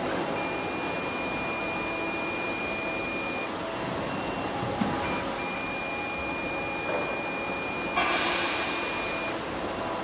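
VICTOR VC9808+ digital multimeter's continuity buzzer giving a steady high beep while the probes touch the vacuum pump motor's winding terminals: it sounds for about three seconds, stops, blips once, then sounds again for about four seconds, showing the windings are connected and not burnt out. A brief rustle comes near the end, over steady background noise.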